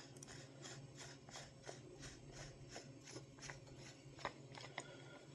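Faint, soft rhythmic handling sounds, about three a second, as a 350cc carbon fiber air bottle is unscrewed by hand from a PCP air rifle's valve assembly, with a couple of small clicks near the end.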